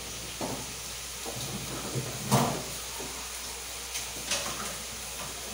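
Kitchen clatter: a few short knocks of cookware over a steady hiss. The loudest knock comes a little over two seconds in.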